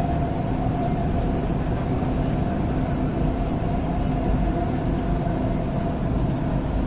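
Dubai Metro train running at speed between stations, heard from inside the carriage: a steady rumble of wheels and running gear with a constant mid-pitched hum over it.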